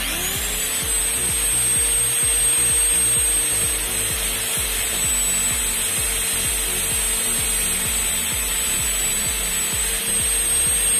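Angle grinder armature spun by a motor, whose whine rises right at the start as it comes up to speed and then holds steady. A hacksaw blade held against the spinning steel lamination stack scrapes it.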